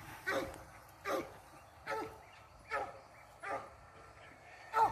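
A dog barking repeatedly, six short barks at a steady pace of a little more than one a second.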